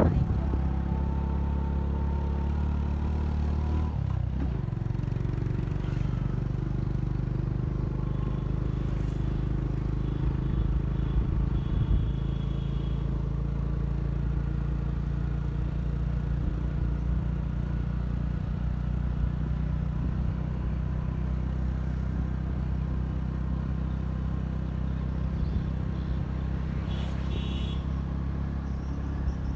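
Engine of a moving motor vehicle running steadily as it drives along a road, its low note changing about four seconds in.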